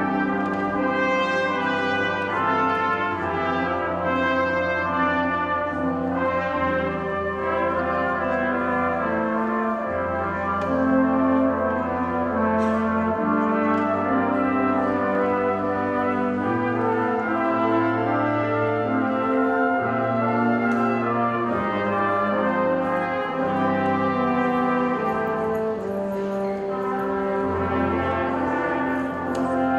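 Brass ensemble playing held chords, with trumpets, trombones and horns sounding together in a slow, sustained passage.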